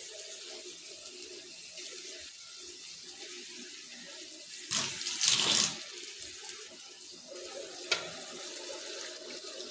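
Hands working thick, wet masala paste into a raw whole chicken: soft squishing, with a louder burst of scooping and smearing about five seconds in and a single sharp click near the end, over a steady background hiss.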